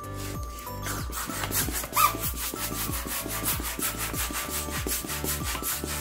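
Hand balloon pump worked in quick strokes, about three or four a second, blowing up a latex balloon.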